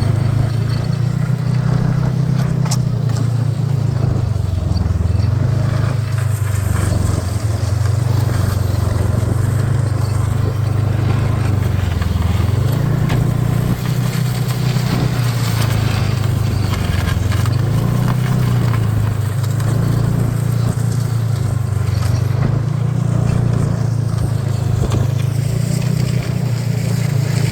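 Snowmobile engine running on the move, its note dipping and rising again every few seconds as the throttle eases and opens.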